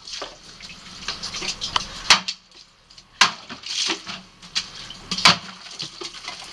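Cold Steel Heavy Machete chopping into plastic water jugs: three sharp whacks, about two, three and five seconds in, with smaller knocks and rattling of plastic between them.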